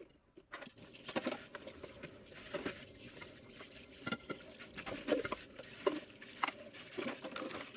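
Dishes being rinsed and scraped at a kitchen sink: running-water patter with small scrapes and knocks of dishware against the sink.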